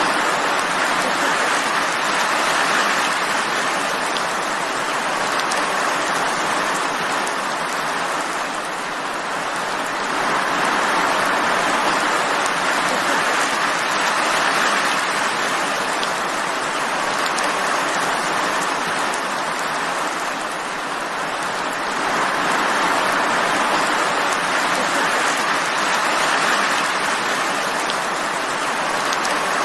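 Steady rain: an even hiss of falling rain with faint scattered drop ticks, swelling and easing gently about every ten seconds.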